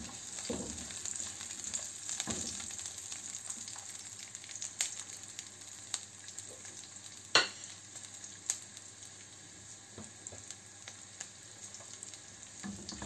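Chopped onion sizzling in butter in a hot frying pan, stirred with a silicone spatula in the first couple of seconds. The sizzle eases off later, with a few sharp pops, the loudest about seven seconds in.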